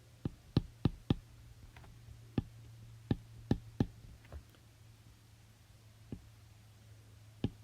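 About a dozen short, sharp clicks and taps at irregular intervals, bunched in the first four seconds, over a steady low hum.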